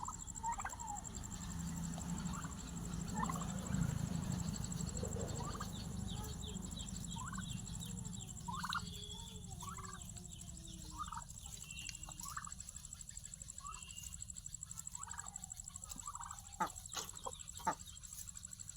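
Domestic turkeys calling at feeding time: short calls repeated every second or so, some of them gliding in pitch, with a few sharp clicks near the end and a steady high-pitched tone underneath.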